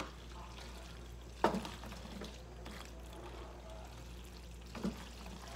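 Wooden spoon stirring sauced macaroni and cheese in a ceramic bowl, a soft wet sound, with two sharp knocks of the spoon against the bowl, about a second and a half in and again near the end.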